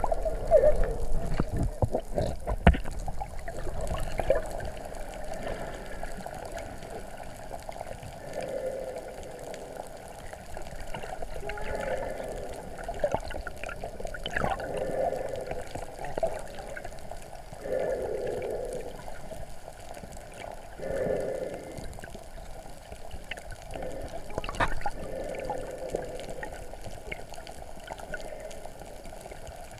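Muffled underwater sound picked up by a submerged camera: a continuous swirling, gurgling water noise that swells and fades. There are a few sharp knocks in the first few seconds.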